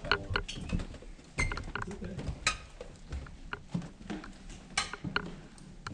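Footsteps of a few people walking, with scattered, irregular clicks and knocks.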